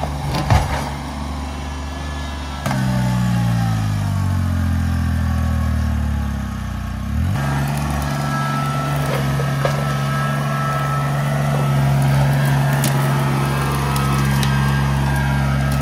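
Kubota BX23S compact tractor's three-cylinder diesel engine running as the front loader lifts a boat on its forks, with a knock about half a second in. About three seconds in the engine gets louder and its pitch slowly drops for several seconds, then picks back up and holds steady.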